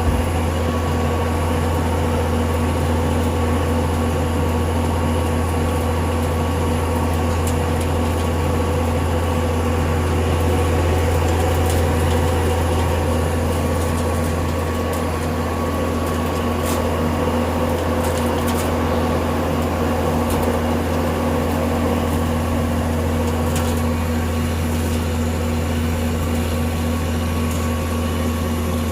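Diesel engine of heavy road-tarring machinery running steadily: a constant low hum with steady higher tones over it, swelling slightly about a third of the way in.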